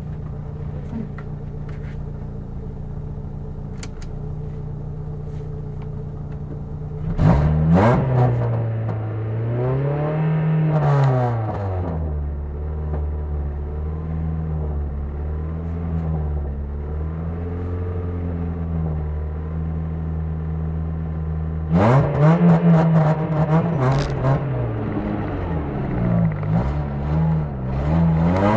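Front-wheel-drive ice-racing car's engine, heard from inside the car: running steadily at first, then revving hard about seven seconds in, its pitch swinging up and down with the throttle, settling lower, and revving hard again from about twenty-two seconds in.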